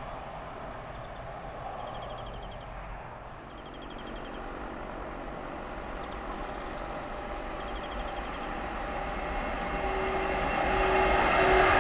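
Freight train hauled by a DB Class 152 electric locomotive approaching on the line, its rolling noise on the rails growing steadily louder.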